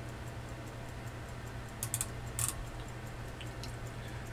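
Faint ticking and small clicks from a digital micrometer being snugged on a pocket-watch balance staff, with two brief clusters of louder clicks about two seconds in, over a low steady hum.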